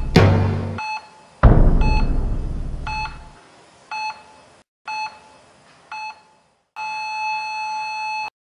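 Heart-monitor beeps, about one a second, from an intro's sound effects, under two deep hits that each die away over a second or two; the beeping then becomes one long flatline tone that cuts off suddenly.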